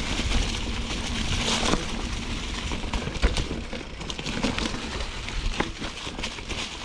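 Mountain bike rolling over a dirt trail: tyre noise over ground, twigs and roots with scattered clicks and knocks from the bike, over a low rumble.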